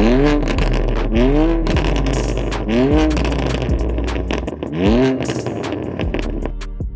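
A car engine revved in four short blips, pitch rising and falling each time, over background music. Near the end the revs stop and only the music plays.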